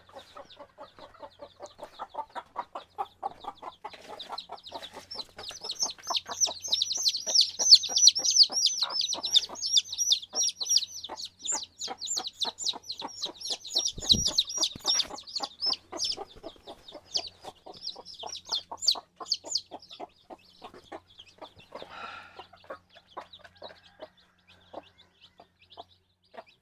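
A flock of chickens clucking and calling: many rapid calls overlapping, busiest and loudest through the middle, then thinning out. A single low knock comes about halfway through.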